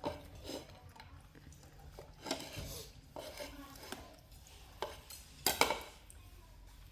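Dishes and utensils clinking and clattering, a few separate knocks at irregular times, the sharpest about two seconds in and about five and a half seconds in.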